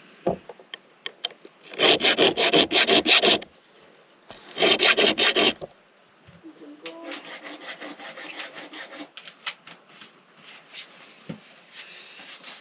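Fast rasping, scraping strokes in two loud bursts of a second or so each, then a longer run of softer strokes and a few scattered ticks.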